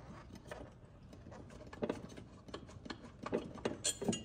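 Hand ratchet with a T40 Torx bit clicking in short spells as it backs out the bolts of a hatch-strut bracket. The clicks are light at first and grow louder and sharper in the second half.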